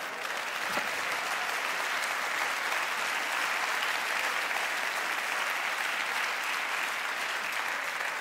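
Theatre audience applauding, a dense steady clatter of many hands that builds up in the first second and holds.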